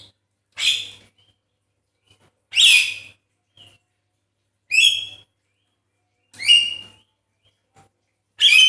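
Javan myna calling: five loud, harsh calls about two seconds apart, each about half a second long, with short faint chirps in between.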